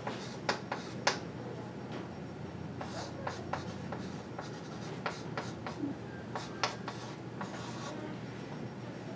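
Someone writing by hand: irregular short scratching strokes and light taps of the writing tip on the surface, in a small room.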